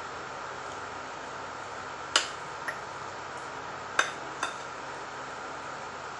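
Metal fork and spoon clinking against a plate while picking at fried fish: a sharp clink about two seconds in and another about four seconds in, each followed by a lighter one, over a steady background hiss.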